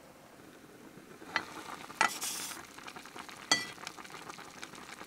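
Hot pot simmering in an electric mess tin. There are three sharp metallic clinks, the first about a second and a half in, as the tin's lid comes off, with a brief hiss of steam after the second.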